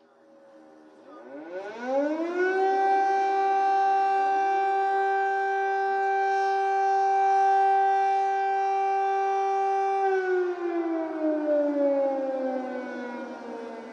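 Air raid siren sounding its warning. It rises in pitch over the first couple of seconds, holds one steady tone for about seven seconds, then starts to wind down.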